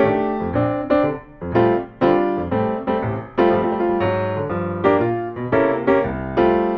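Background piano music: a lively tune of struck notes, several a second.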